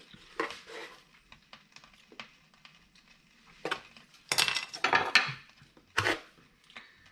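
Cutlery and kitchenware clinking and knocking in short, scattered clicks. A busier run of clatter comes around the middle, and one sharp knock follows about six seconds in.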